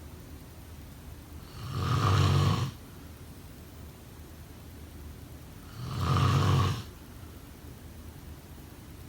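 Snoring: two loud, rasping snores about four seconds apart, each lasting about a second, with quieter breathing between them.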